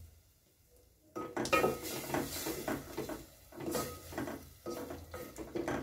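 Wooden spoon stirring and scraping in a metal cooking pot of stew: irregular knocks and scrapes against the pot, starting about a second in.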